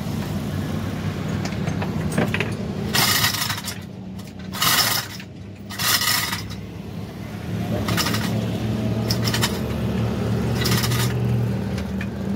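Steel chains of a chain hoist clinking and rattling in about seven short bursts as the hoist is worked, over a steady low hum.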